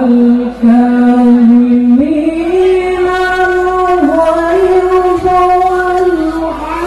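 Music with a singing voice holding long notes: one note held for about two seconds, then a higher note held for most of the rest.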